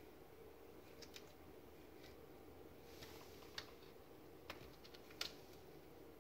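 Near silence with a steady low hum, broken by about seven faint, scattered light clicks of a kitten's claws on the rim of a clear plastic tub.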